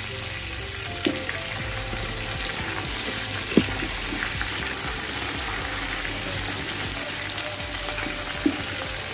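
Onions, whole spices and fresh mint and coriander leaves sizzling in hot oil in a large nonstick pot, stirred with a wooden spatula that knocks against the pot a few times, loudest about three and a half seconds in.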